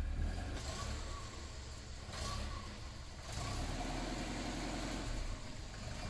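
Classic Alfa Romeo Giulia Super's engine idling outside, a low, faint rumble that eases a second or so in and swells again a few seconds later.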